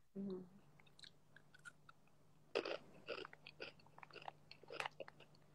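Crunchy fried macaroni snack being chewed close to the microphone: a run of small, irregular crunches that starts about two and a half seconds in.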